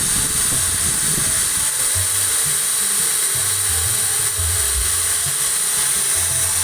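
Small handheld power grinder running steadily with a high whine, grinding down weld built up between the teeth of a motorcycle's front sprocket shaft. Background music with a bass line plays under it.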